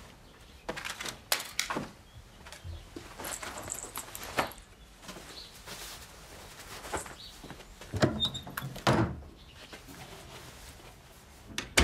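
Clothes and belongings rustling and clattering as a room is rummaged through, with scattered sharp knocks. About eight and nine seconds in come two heavy wooden thuds from the lid of a wooden storage chest.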